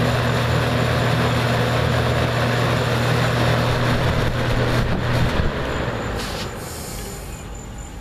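Toastmaster 4425 box fan running, with a steady motor hum and rushing air. About five seconds in there are a couple of clicks, the motor hum stops, and the air noise dies away as the blades spin down.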